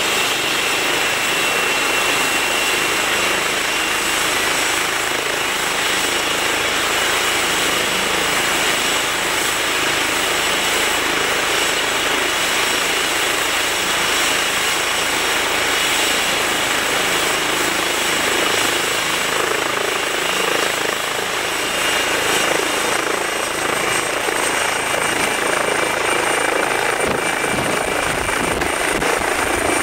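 Eurocopter EC135 air ambulance helicopter at full power on the pad, its twin turbines whining steadily over the rush of the turning rotor. In the last few seconds the whine climbs slightly and a low rotor chop comes in as it lifts off.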